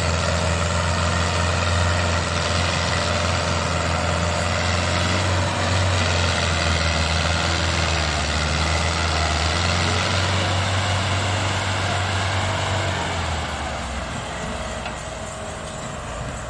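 Fiat 640 and Belarus MTZ-50 tractors' diesel engines running hard under load as they pull a heavily loaded sugarcane trolley, a steady low drone. The drone drops off and fades about three seconds before the end.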